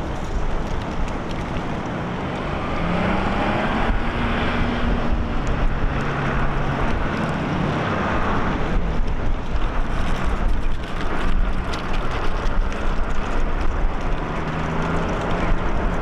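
Street traffic with vehicle engines humming past, and wind buffeting the microphone as a low rumble.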